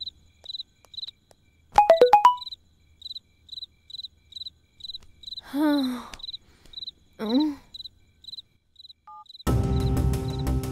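Crickets chirping, a steady high chirp about twice a second. A cluster of sharp clicks comes about two seconds in, two short voice sounds come around six and seven seconds, and background music starts near the end.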